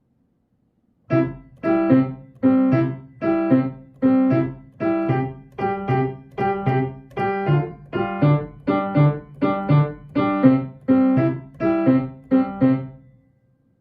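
Solo piano playing a simple march for children's movement games. It starts after about a second of silence, goes on in a regular bouncing rhythm of notes and chords, and stops shortly before the end.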